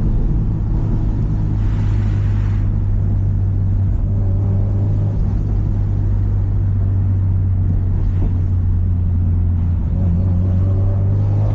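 Subaru Impreza WRX STI's EJ207 turbocharged flat-four engine running at fairly steady revs with a low, even rumble. A brief hiss comes about two seconds in.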